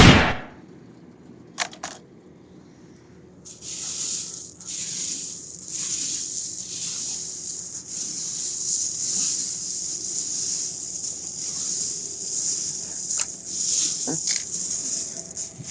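A sharp bang right at the start. After a few seconds it gives way to a continuous gritty rustling and scraping of loose pebbles being shifted, with a few small clicks near the end.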